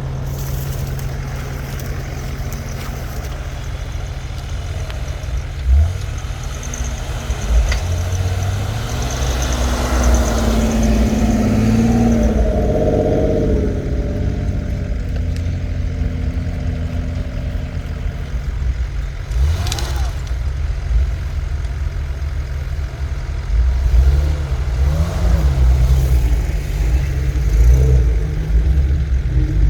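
4x4 engine running and revving up and down under load on a trail, with a heavy low rumble throughout. A sharp knock comes about twenty seconds in.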